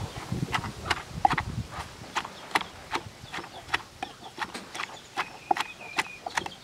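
Wooden pestle pounding green papaya salad in a wooden mortar, a steady run of knocks about three a second, while a metal spoon turns the mix.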